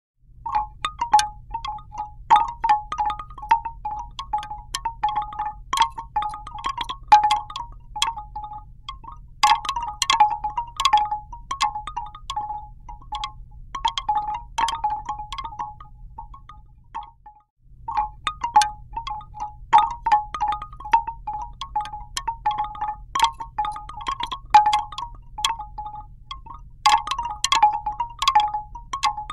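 Bamboo birdhouse wind chime: its bamboo tubes are struck over and over in an irregular jumble of quick knocks that ring at a few close pitches, over a faint low hum. The knocking breaks off briefly about two-thirds of the way through, then carries on.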